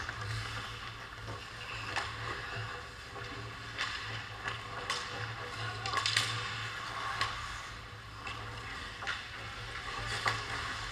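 Ice skate blades scraping and carving on the rink, with several sharp clacks of hockey sticks and puck scattered through, over a steady low hum.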